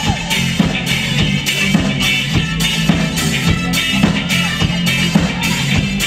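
Live rock band playing an instrumental passage without vocals: a drum kit keeps a steady beat about twice a second under sustained bass notes.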